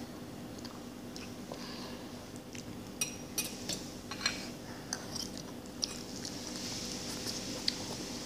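Metal forks clicking and scraping against a bowl of instant ramen noodles while someone eats, then noodles being slurped near the end.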